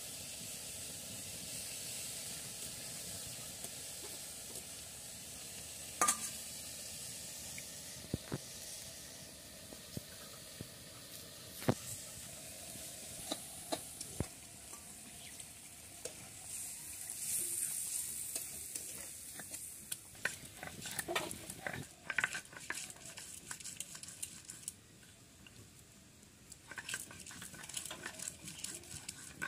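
Vegetables frying in hot oil in a wok, with a steady sizzle. Now and then a sharp knock or click of utensils, growing into busier clattering in the last third.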